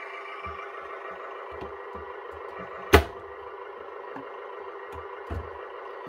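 The LESU 850K RC dozer's sound-system engine idle sound plays steadily through its tiny built-in speaker, thin and without low end. A few soft knocks come and go, and there is one sharp click about halfway through.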